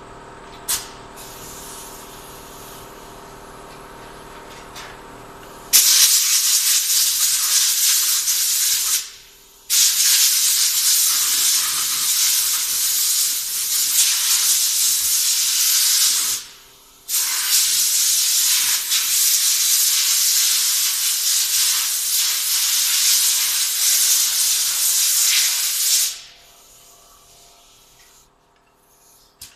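Compressed air hissing from a blow gun in three long blasts with two short breaks, starting about six seconds in and stopping shortly before the end, blowing off automatic transmission parts in the workshop.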